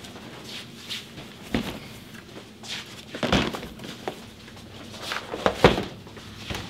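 Cardboard handgun boxes and hard plastic gun cases being set down and stacked on a counter: a few dull knocks, the loudest about three and a half and five and a half seconds in.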